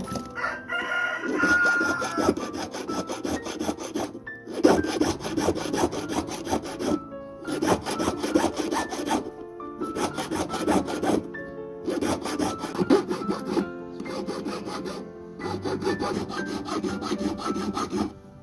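Small hand file rasping back and forth on a metal ring held against a wooden bench pin, in runs of quick strokes with short pauses every two to three seconds.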